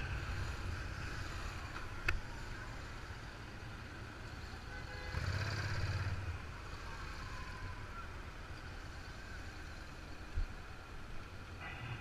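Motorcycle engine running at low speed with wind noise on the microphone, briefly louder about five seconds in; a sharp click about two seconds in and a short thump near the end.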